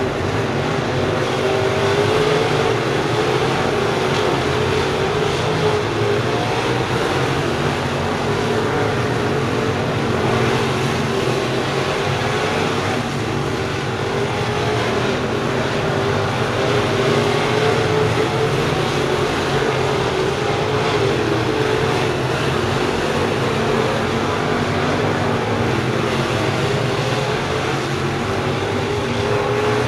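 A field of dirt-track crate late model race cars running laps, their V8 engines making a steady, dense drone whose pitch wavers up and down as the cars go around the oval.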